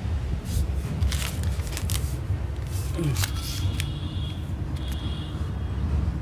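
Crinkling and clicking of a clear plastic packet being handled, as scattered sharp crackles over a steady low rumble.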